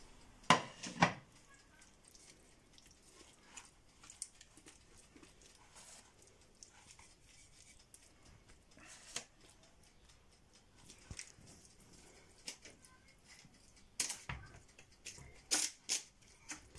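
Kitchen handling sounds on a parchment-lined baking tray. There are two sharp knocks about half a second apart near the start and faint scattered ticks and rustles, then a few more knocks and scrapes near the end as a wooden spatula spreads the filling across the tray.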